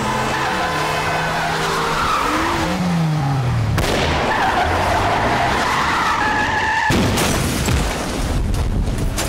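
Car engines revving, with tyres squealing in a wheelspin. About seven seconds in, the sound cuts to a sudden loud, deep rush of noise.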